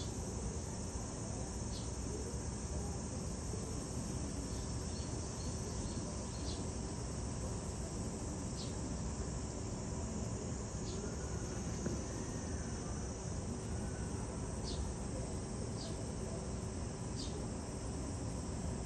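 Insects chirping: a steady high buzz with short, sharp chirps every second or two, over a faint low steady hum.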